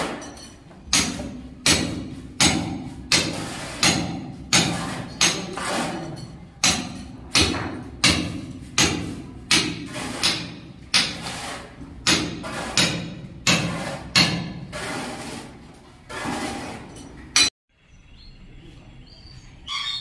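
Hammer striking a steel chisel to chip into a brick wall, in a steady rhythm of about a strike and a half a second, each blow with a short ring. The strikes cut off suddenly near the end.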